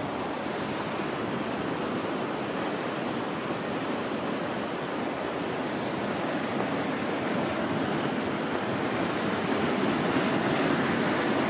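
The Yarra River in flood: swollen brown floodwater rushing and churning past, a steady, even rush of water that grows a little louder towards the end.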